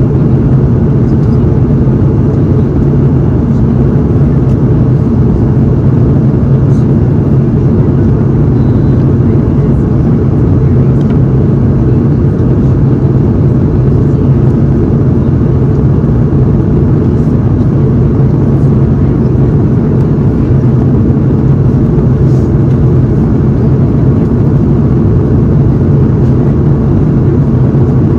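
Steady engine and airflow noise heard inside the cabin of an Airbus A330-200 airliner powered by Rolls-Royce Trent 700 turbofans: a constant low hum with no change in pitch or level.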